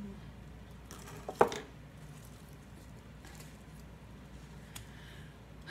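Flower pots being handled while a begonia is worked out of its plastic nursery pot: one sharp knock about a second and a half in, then a few faint clicks.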